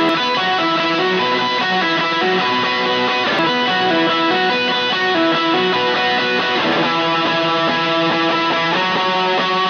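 Electric guitar played through an effects pedalboard and amp, with ringing, overlapping sustained notes. It is on a Lambertones Crema bridge pickup, and about two-thirds of the way through it switches to a second guitar on a Lambertones Grinder bridge pickup.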